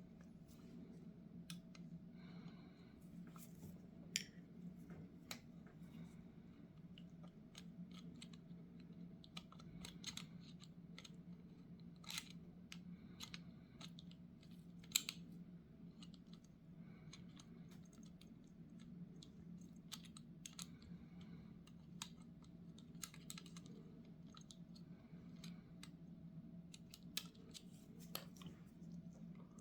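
Scattered light clicks, taps and scrapes of small metal carburetor parts and hand tools being handled while a Zenith 35/40 INAT carburetor's float bowl is taken apart. A steady low hum runs underneath.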